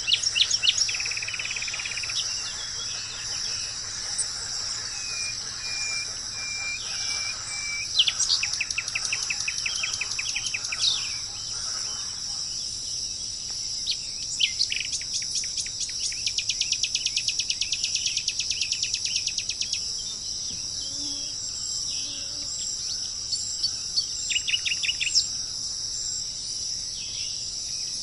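A steady, high-pitched chorus of insects such as crickets runs throughout. Over it, birds call: two bouts of rapid, evenly repeated notes, one about eight seconds in and a longer one from about sixteen to twenty seconds, plus scattered short chirps.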